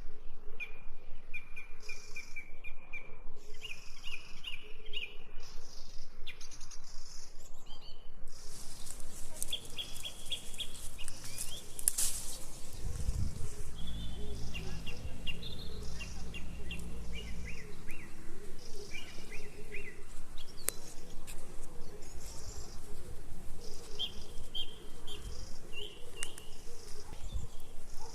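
Small songbirds chirping in short repeated trills over outdoor background noise, which becomes fuller about eight seconds in. A low rumble comes in briefly midway.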